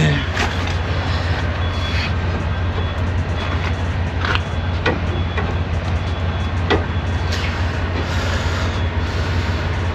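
Semi truck's diesel engine idling with a steady low rumble, with a few sharp knocks scattered through it.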